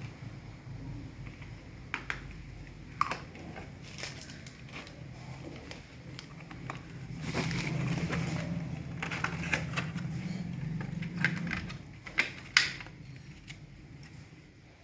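Scattered clicks and taps of small hardware being handled, with a low hum that swells from about seven seconds in and fades near eleven; one sharp click near the end is the loudest.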